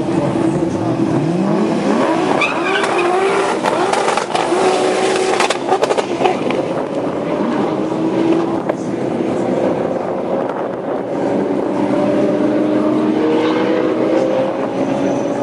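Two drag-racing cars, one a turbocharged VW Golf Mk1 'R38 Turbo', launching from the start line at full throttle and accelerating away down the strip. The engine note climbs sharply at the launch, then rises again through each gear change, with a few sharp cracks about five to six seconds in.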